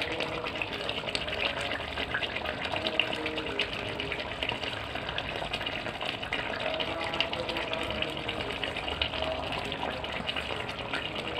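Thick mattar paneer curry gravy simmering in a pan, bubbling and popping steadily, with a spatula stirring through it now and then.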